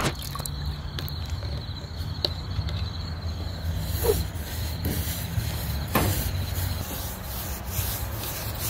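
Steady rubbing on a surface over a low hum, with a few light knocks.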